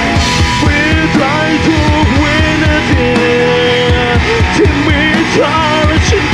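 Live rock band playing: electric guitars and drums, with a male singer's voice carrying the melody over them.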